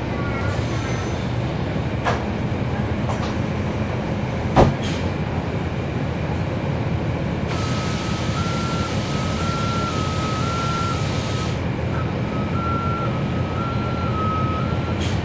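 NABI transit bus's Cummins ISL9 diesel engine running steadily, with a sharp knock about four and a half seconds in. About halfway through, a burst of air hiss lasts some four seconds, and a faint tone begins stepping back and forth between two close pitches.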